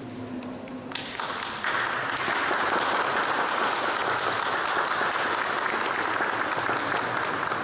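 Audience applauding. The clapping starts about a second in, swells within the next second and then holds steady.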